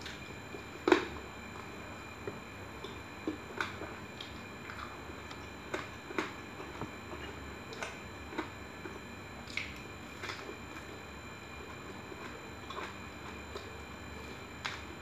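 A person chewing food and smacking her lips close to the microphone: irregular soft wet clicks and smacks, the loudest about a second in.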